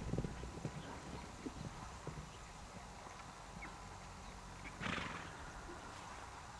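Horses' hooves drumming on dry dirt, heaviest in the first second and thinning out as the horses slow. Just before five seconds in, one horse gives a short loud call.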